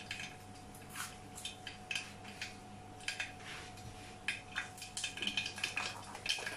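Mustard seeds spluttering in hot oil in a pressure cooker: irregular sharp pops and crackles, coming thicker from about four seconds in, over a faint steady hum.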